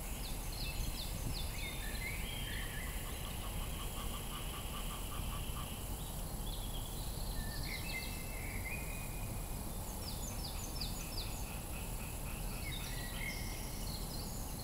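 Spring woodland pond chorus: songbirds calling in short high phrases, often three or four quick notes in a row, throughout. A frog croaks in a rapid pulsed run for a couple of seconds early on. A steady low rumble lies underneath.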